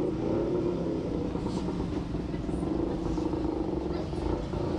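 Street traffic: motor vehicle engines running, a steady low rumble.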